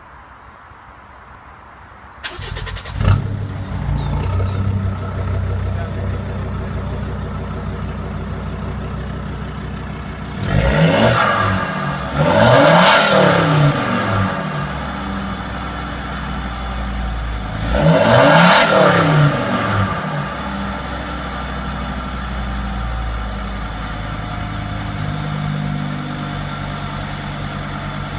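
Jeep Grand Cherokee 2.7 CRD five-cylinder diesel, remapped (chipped) to about 200 bhp, starting about two seconds in and settling to idle. It is then blipped three times, each rev rising and falling back, before idling steadily again.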